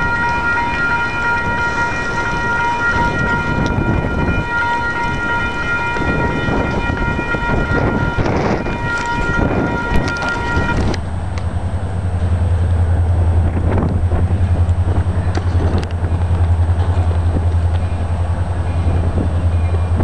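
Railroad grade-crossing bell ringing over the rumble of a train, the bell cutting off about eleven seconds in as the crossing gates rise. After that, a steady low hum.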